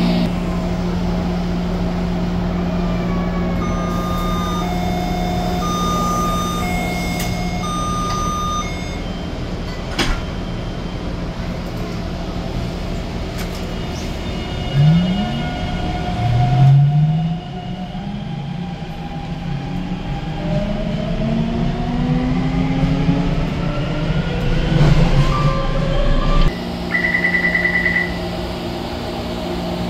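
Taipei Metro C321 train: a repeating three-note door chime, a sharp click as the doors shut, then the traction motors' whine gliding up in pitch as the train gets under way and runs. Near the end comes a short pulsing beep as the doors open at the next station.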